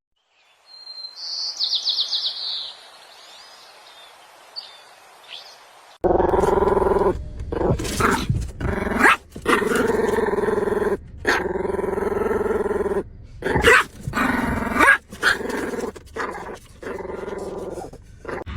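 A dog vocalizing in long, drawn-out pitched calls with short breaks between them, starting suddenly about six seconds in. Before that there is only a faint background and a brief high chirping.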